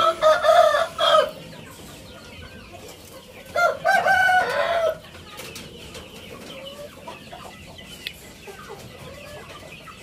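Aseel chickens calling in their pen: two loud, drawn-out calls, one at the start and one about three and a half seconds in, with faint high chirps after.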